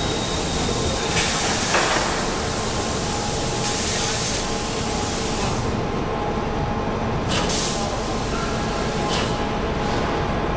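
Roll forging machine and its manipulator running steadily while forging a hot crankshaft blank, with bursts of hissing about a second in and around four seconds, and two short hisses later.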